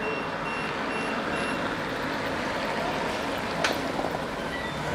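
Street traffic noise as a car drives past on the road, with a faint high beep repeating about twice a second for the first second and a half. A single sharp crack about three and a half seconds in.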